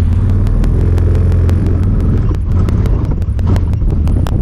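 Honda Talon 1000R side-by-side's engine running steadily under way, with frequent sharp clicks and rattles throughout.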